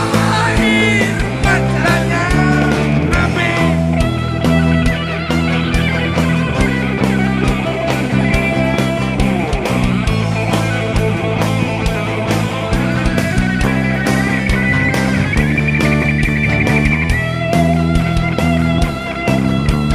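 Live rock band playing an instrumental break: electric guitar lead with bending notes over bass and a steady drum beat, with a fast trilled guitar passage about sixteen seconds in.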